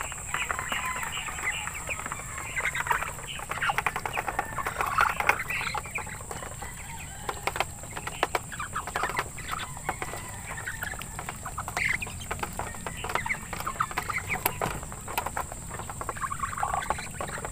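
Muscovy ducks and ducklings feeding from a metal tray: many quick clicks of bills pecking at the tray and food, with short bird calls among them.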